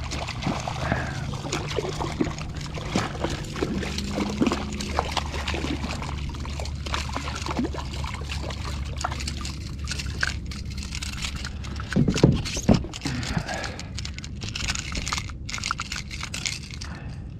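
Water splashing and sloshing as a hooked small barracuda thrashes at the surface beside a kayak, over a steady low hum and many small clicks. A few louder thumps come about twelve seconds in.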